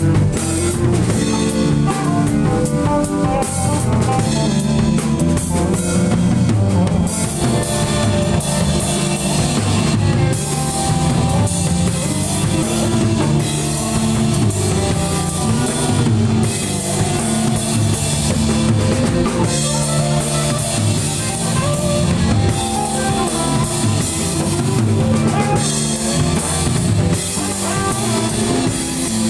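Live rock band playing loud and without a break: a drum kit keeping a steady beat under several electric guitars.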